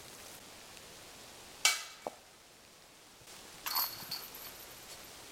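Disc golf basket: a sharp metallic clank with a short ring about a second and a half in, then about two seconds later the basket chains jingling briefly as a disc hits them.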